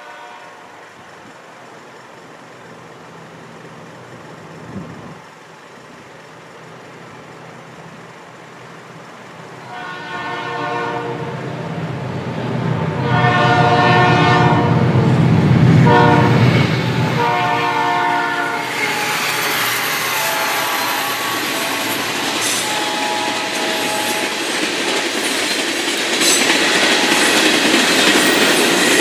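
Diesel freight locomotive approaching a grade crossing sounding its chime horn, a new cast Nathan P3, in the crossing signal: two long blasts, a short and a long, over the engine's rumble. About two-thirds of the way through the train reaches the crossing, and the steady rattle and clicking of wheels over the rails takes over.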